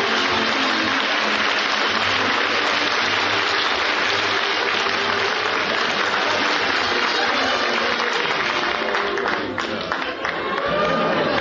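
Studio audience applauding steadily, thinning out near the end.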